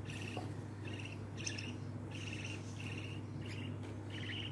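Budgie chick giving short, raspy, pulsing cheeps about twice a second while being hand-fed, over a steady low hum.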